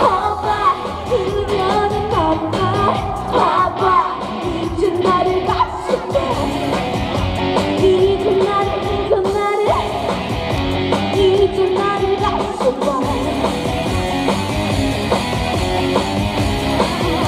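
Live trot song: a woman singing over loud backing music with a steady beat.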